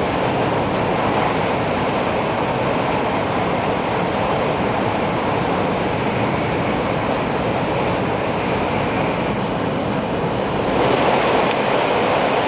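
Steady running noise of an N700 series 8000 Shinkansen at speed, heard inside the passenger cabin. About 11 seconds in the noise rises and fills out as the train enters a tunnel.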